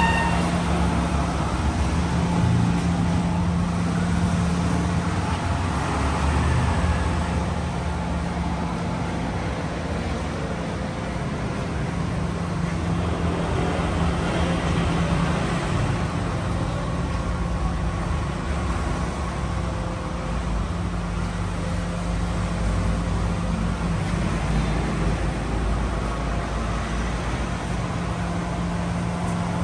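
A car running: a steady low hum over a constant wash of engine and road noise.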